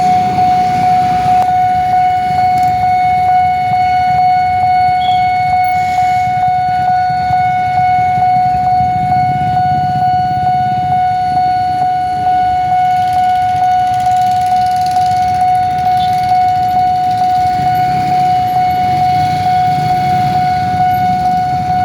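Railway level-crossing warning alarm sounding one unbroken, steady high electronic tone, with a low rumble underneath.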